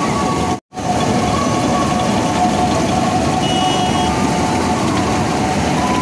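Combine harvester running while it cuts wheat: a loud, steady drone of engine and machinery with a steady whine in it. The sound drops out for an instant about half a second in.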